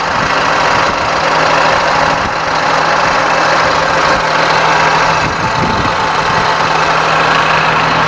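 Caterpillar C7 inline-six diesel engine idling steadily, heard close up at the open rear engine compartment, with an even hum and a hiss. It is running smooth.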